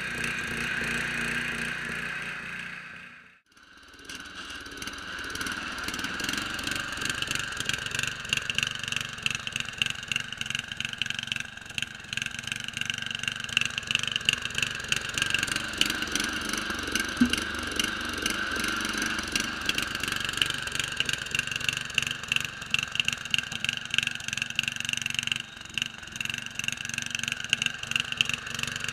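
Small engine of a homemade Craftsman 6x4 garden tractor running steadily, with a brief drop-out about three seconds in.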